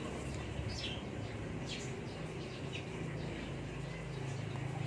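Outdoor ambience: scattered short bird chirps over a steady low hum.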